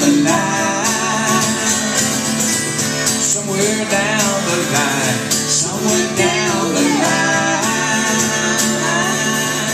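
Live country music: guitar playing, with a male voice singing.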